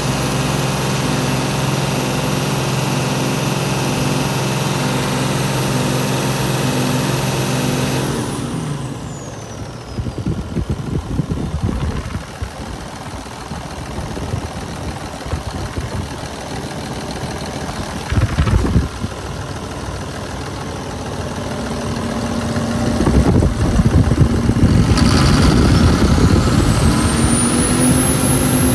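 Mercedes MBE 926 7.2-litre six-cylinder diesel engine running at raised revs with a steady high whine, dropping back about eight seconds in as the whine falls away, then running rougher and lower. Near the end it is revved up again and the whine climbs back up.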